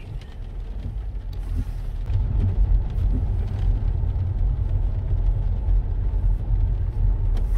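Low rumble of a car pulling away, heard from inside the cabin, growing louder about two seconds in, with a few faint clicks.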